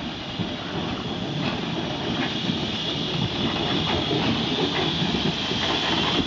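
Hunslet Austerity 0-6-0 saddle-tank steam locomotive and its carriages drawing in along the platform, growing steadily louder as they near, with the wheels clicking over the rail joints.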